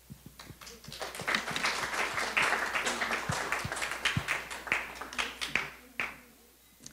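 Audience applauding, picking up about a second in and dying away near the end.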